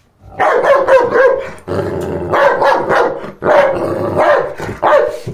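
Black schnauzer "talking" loudly: four long, drawn-out vocal bouts, half bark and half growl, with the pitch bending up and down within each.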